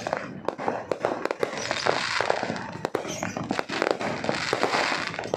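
A fireworks display going off: a rapid, unbroken barrage of bangs and crackles, many shots overlapping each other.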